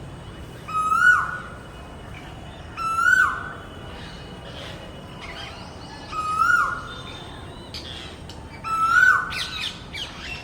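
A bird calling four times, every two to three seconds: each call a short held note that drops off sharply at its end. Fainter chirps from other birds come in between, busier near the end.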